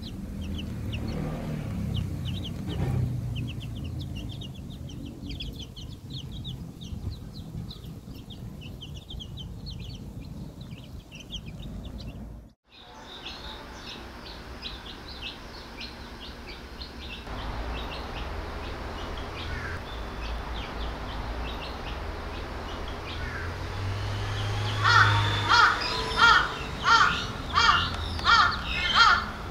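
Newly hatched chicks peeping in quick, high chirps, with a sudden break about halfway through. Near the end comes a run of about eight louder, harsher calls.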